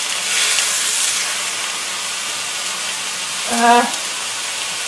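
Chicken breast pieces sizzling steadily as they fry in olive oil in a cast-iron skillet, with a brief vocal sound about three and a half seconds in.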